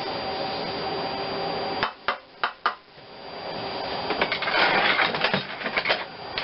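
Four sharp clicks of metal parts being handled, then about two seconds of scraping and rattling with small clicks, as a pulley is fitted to the engine with new bolts.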